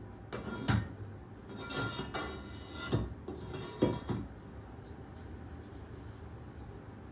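Glass parts of a laboratory extraction apparatus being handled and set down: a few knocks and scrapes with faint glassy ringing over about three and a half seconds, then a few light ticks.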